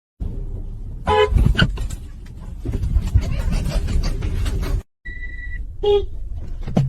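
Car horn honking in short blasts, once about a second in and again near six seconds, over a steady vehicle rumble. A brief high beep sounds just after a cut near five seconds.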